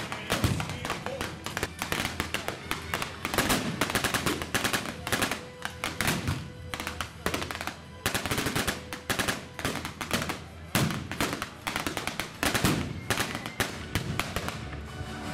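Dense blank gunfire from rifles and machine guns, shots crackling in quick succession, with one heavier bang about half a second in. Music plays underneath.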